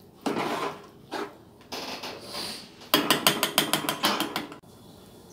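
Stainless ladle stirring and scraping through soupy rice in a cooking pot in a few short strokes. Then, about three seconds in, a rapid run of sharp clicks, about six a second, for a second and a half.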